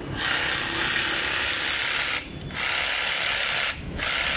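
An INGCO 20V cordless jigsaw running unloaded, triggered three times. It runs for about two seconds, stops briefly, runs for about a second, pauses again, then starts once more near the end.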